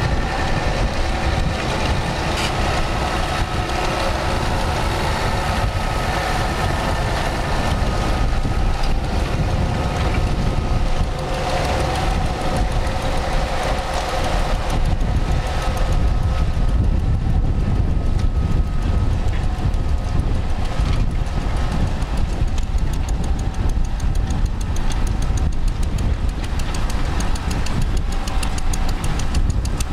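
Old engines running steadily, a dense low rumble; in the second half a quick, even beat of firing strokes stands out.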